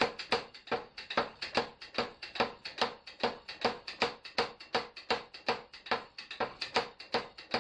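Hammer blows on hot steel over an anvil while the plane blade is forged, a steady run of about four strikes a second, louder and softer in turn, each with a short metallic ring.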